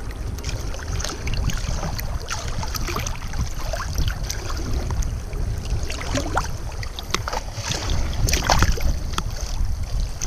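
Water sloshing and splashing close to the microphone over a steady low rumble, with scattered small crackles and a busier patch of splashing near the end.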